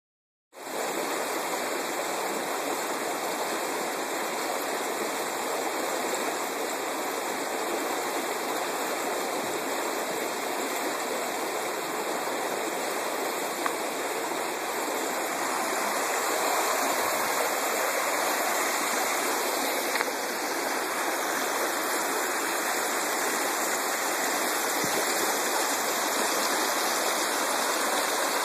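Water rushing and splashing over a small dam's spillway: a steady, unbroken rush of falling water.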